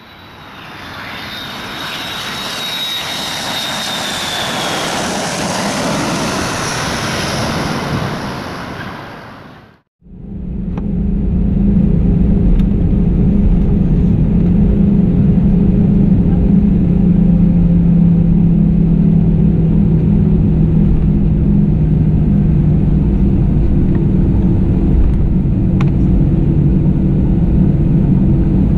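Inside an Airbus A320-214's cabin, the CFM56 jet engines and cabin systems give a steady low hum as the aircraft taxis, with a few faint clicks. Before that, over the first ten seconds, a brighter sound with a high falling whine swells and then fades out to silence.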